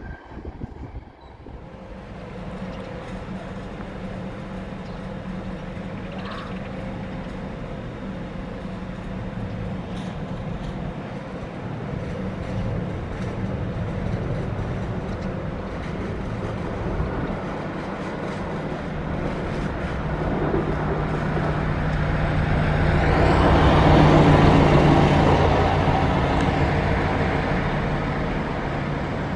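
Train running past on the track: a steady hum with rolling noise that grows louder, peaks about three-quarters of the way through, then eases off.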